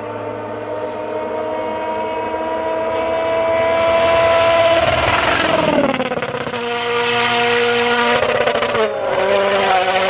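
World Rally Car engines, 1.6-litre turbocharged four-cylinders, at full speed on a rally stage. The engine note climbs as a car approaches, peaks and falls sharply as it passes about five seconds in. It then holds steady notes that drop in steps, with sharp crackles near the end.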